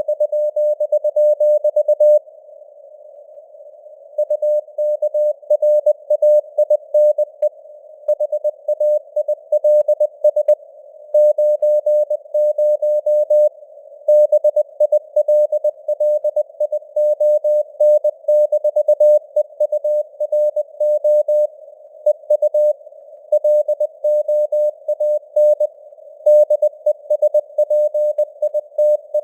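Morse code (CW) sent at 20 words per minute: a single mid-pitched tone keyed on and off in dots and dashes, over a narrow band of hiss that is simulated radio noise. The keying pauses for about two seconds a couple of seconds in.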